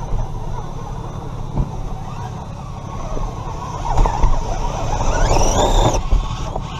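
Redcat Gen7 Pro RC rock crawler driving, heard from a camera mounted on the truck: a steady low rumble with drivetrain noise, growing louder about four seconds in, and a whine that rises in pitch about five seconds in.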